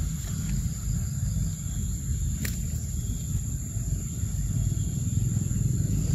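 Outdoor ambience dominated by a steady low rumble, with a thin, steady high-pitched tone over it and a single sharp click about two and a half seconds in.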